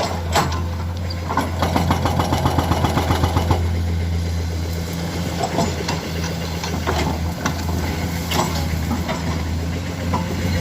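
Heavy construction machine's diesel engine running steadily with a deep hum. A fast rattle starts about a second in and lasts a couple of seconds, and scattered knocks come over the engine.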